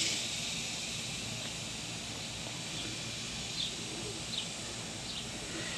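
Outdoor ambience: a steady high hiss with a few faint bird chirps in the middle.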